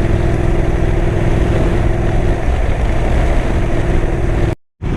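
Motorcycle engine running steadily at a slow riding speed, mixed with wind noise; a steady tone in the sound stops about halfway through, and the audio drops out completely for a moment near the end.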